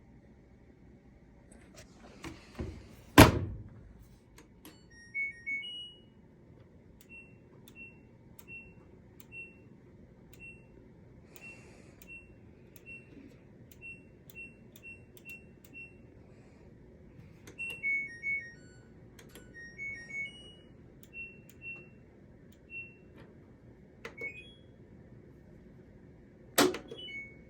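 LG WM2101HW front-load washing machine's control panel: short high electronic beeps, singly and in little two- or three-note chimes, as it is powered on and its settings are changed. A loud clunk comes about 3 s in, and sharp clicks near the end.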